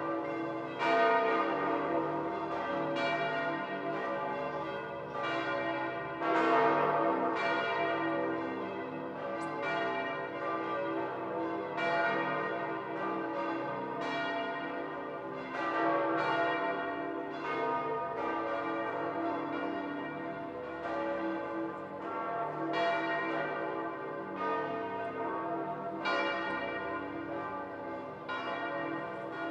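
The bells of St. Peter's Basilica ringing in full peal, strikes about once a second overlapping over a steady hum of ringing tones. The peal announces the election of a new pope.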